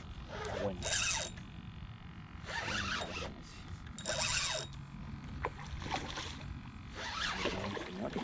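Spinning reel's drag buzzing as a hooked black drum pulls line off against it, in two short runs about a second in and about four seconds in. Softer splashing and scraping come between the runs and near the end.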